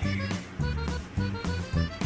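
Background music: a quick tune of short, changing notes over a bass line.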